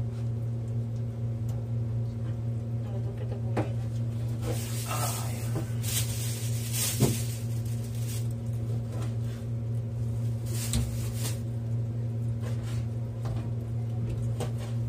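Beef and vegetables being washed and handled in a kitchen: scattered knocks and clatter, with a rushing noise for a few seconds in the middle and briefly again later, over a steady low hum.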